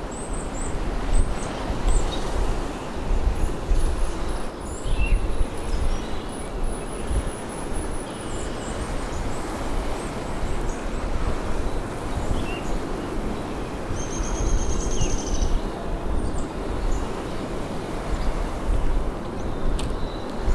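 Outdoor ambience: a steady rushing noise with a strong low rumble, and birds chirping high above it, with short chirps near the start, a long thin whistle a few seconds in and a fast trill past the middle.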